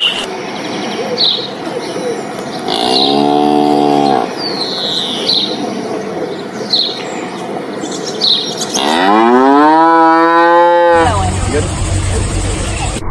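A cow mooing twice: a short moo about three seconds in, then a longer one that rises in pitch, about nine seconds in. Small birds chirp now and then in the background. Near the end the sound cuts abruptly to a different, noisier clip.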